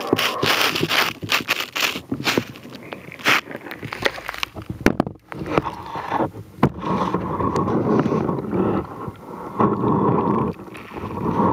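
A small camera scraping and knocking as it is hauled up out of a hole in the sea ice, a rapid run of sharp clicks. About six seconds in this gives way to wind buffeting the camera's microphone.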